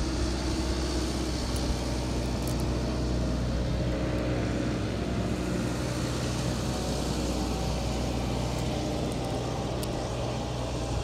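A motor running steadily, a low even hum with a faint hiss above it.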